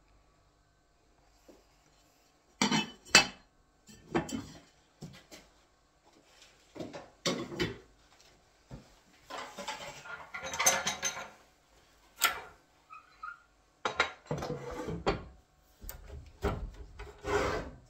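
Ceramic wall tiles and tiling tools being handled: irregular hard clinks, knocks and short scrapes, beginning about two and a half seconds in.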